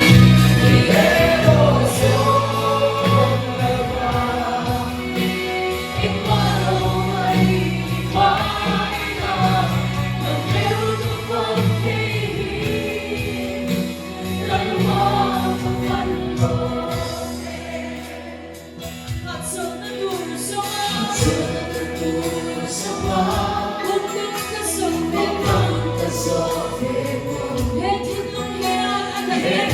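Music with a choir singing, in the style of gospel music, over a steady bass.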